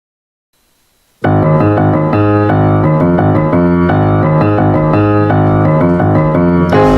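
Piano music starting about a second in, a steady run of chords and notes with a regular rhythm, growing fuller near the end.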